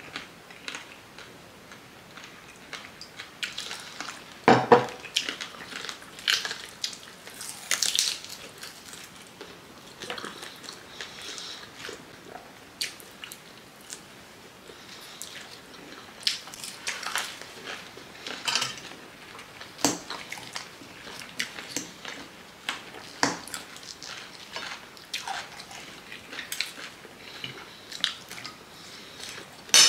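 Close-up eating sounds: chewing, biting and lip-smacking on chicken feet and fries, in irregular short smacks and clicks, with the odd clink of a fork on a plate.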